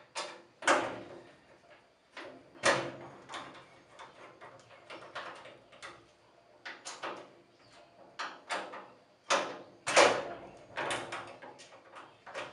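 Irregular metal clanks and clicks as caster wheels are unscrewed and refitted on the base of a rolling tool cabinet, with three louder knocks: under a second in, near three seconds, and around ten seconds.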